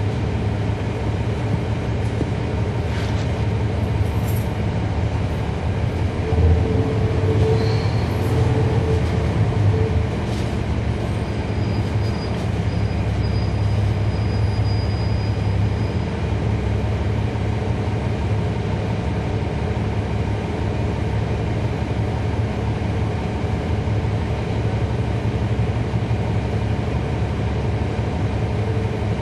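Cummins ISL9 diesel engine of a 2011 NABI 40-SFW transit bus running, heard on board as a steady low drone. The ZF Ecolife automatic transmission is nearly silent. The drone swells louder for a few seconds about a quarter of the way in.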